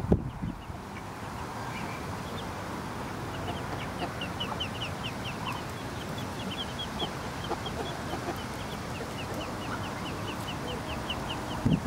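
Muscovy ducklings peeping: short, high peeps, a few at first, then a quick run of about three a second that lasts until near the end.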